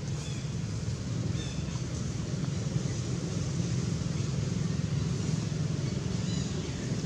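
Steady low outdoor rumble, even in level throughout, with a few faint, short high chirps near the start, about a second and a half in, and near the end.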